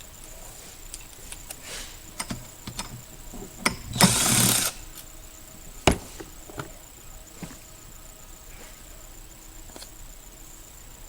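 Small parts and tools being handled at the work area: scattered light clicks and knocks, a short loud scraping rush about four seconds in, and a sharp click about two seconds later.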